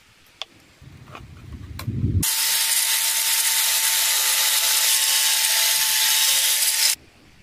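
Angle grinder running with a steady high whine as its disc grinds a groove into a PVC sheet. It starts about two seconds in, after some low handling rumble, and cuts off suddenly near the end.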